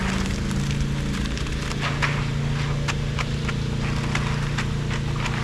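An engine running steadily at a constant speed, with irregular sharp clicks and knocks over it.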